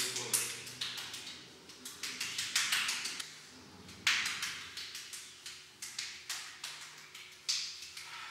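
Irregular sharp taps and clicks, several a second, with short bursts of hiss in between.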